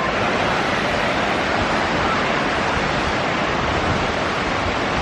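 Steady rushing water from a nearby waterfall and stream, an even unbroken noise.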